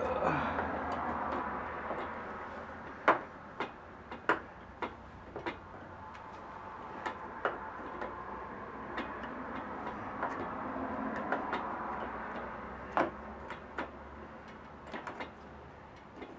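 Scattered metal clicks and knocks as a replacement starter motor is worked into a tight spot on a Honda FourTrax ATV engine, over steady background noise.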